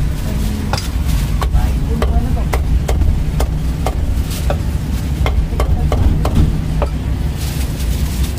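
Meat cleaver chopping crispy roast pork on a round chopping block: a steady run of sharp knocks, about two to three a second, that stops near the end. A steady low rumble runs underneath.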